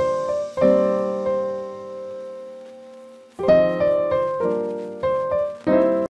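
Background piano music: chords struck and left to ring, one fading slowly for nearly three seconds before a quicker run of chords near the end.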